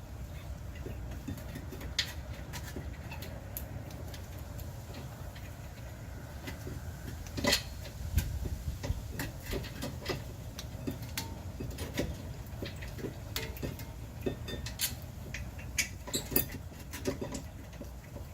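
Scattered clicks and metallic knocks of car brake parts and tools being handled during reassembly, with one louder clank about seven and a half seconds in, over a steady low rumble.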